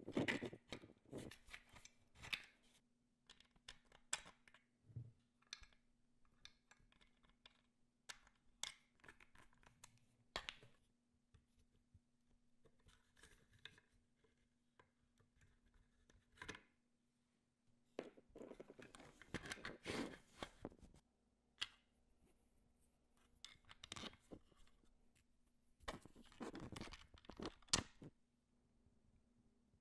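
Quiet handling noises: scattered sharp clicks and light scrapes, with two longer stretches of rustling about eighteen and twenty-six seconds in, over a faint steady hum.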